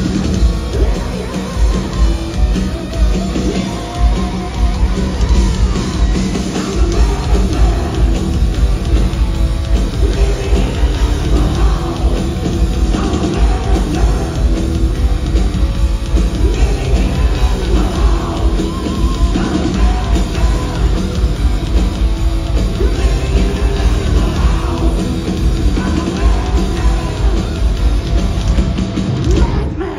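Heavy metal band playing live: distorted electric guitars, bass and drum kit, with lead vocals over them.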